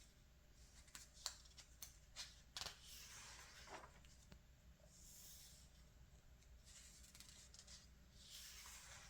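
Faint rustling and swishing of glossy magazine pages being turned and handled, with a few small clicks of paper between one and three seconds in.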